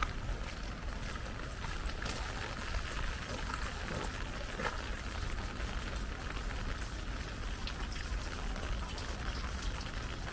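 Light rain falling: a steady hiss dotted with many short, scattered drip clicks, over a low steady rumble.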